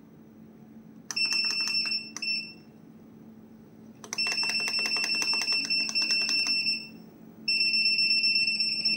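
Treadmill console's electronic buzzer beeping in a high, steady tone: one beep about a second in, a short one just after, a long beep of about two and a half seconds, and another starting near the end, over a steady low hum.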